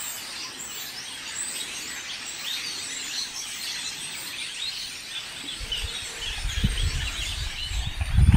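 Many small birds chirping and singing together in a steady chorus. From about halfway through, a low rumbling noise builds up and pulses loudly near the end.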